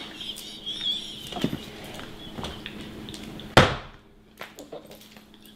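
Women laughing hard, with a wavering high-pitched squeal of laughter in the first second. About three and a half seconds in comes a single loud thump.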